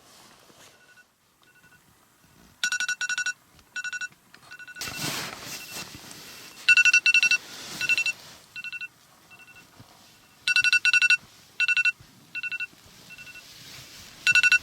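Electronic alarm beeping: short, high, pure beeps at one pitch, loud ones in quick runs of about four with softer single beeps between, repeating several times. Some rustling is mixed in.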